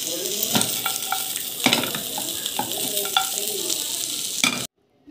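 Chicken pieces sizzling as they fry in a non-stick frying pan, with several sharp knocks and scrapes of a utensil stirring them. The sound cuts off suddenly near the end.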